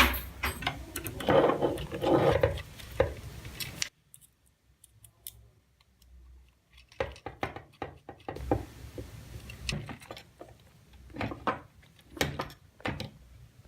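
Small hard objects clattering and clicking as they are handled. The sound cuts off abruptly about four seconds in and then returns as scattered sharp clicks and knocks.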